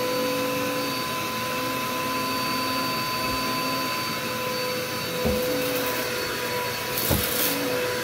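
Bagless upright vacuum cleaner running on carpet: a steady motor hum with a high whine, with two dull knocks about five and seven seconds in.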